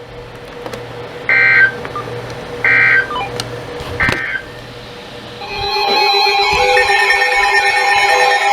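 Three short warbling data bursts about a second and a half apart: the SAME end-of-message tones that NOAA Weather Radio sends after an Emergency Alert System warning. About halfway through, louder music with sustained tones starts.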